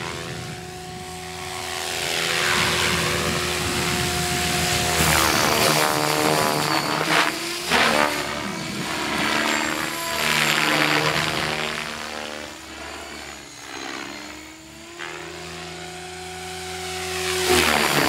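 Gaui Hurricane 550 electric RC helicopter in flight: the whine of its Scorpion brushless motor and drive gears with the whoosh of its 503 mm rotor blades. The sound grows louder and fainter several times as the helicopter moves about overhead.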